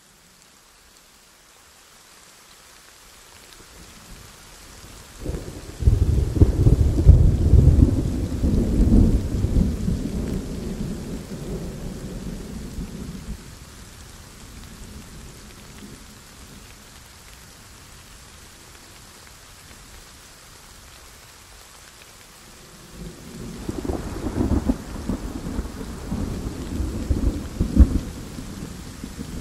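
Heavy rain falling steadily, with thunder. A loud rumble breaks suddenly about five seconds in and rolls away over several seconds, and a second rumble with sharper cracks builds about twenty-three seconds in.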